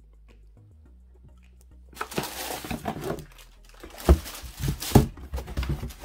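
Cardboard shoebox and paper packing being handled: rustling and scraping from about two seconds in, with two sharp knocks about a second apart near the end.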